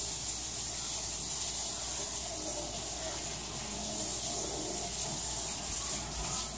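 Kitchen faucet running steadily into a sink.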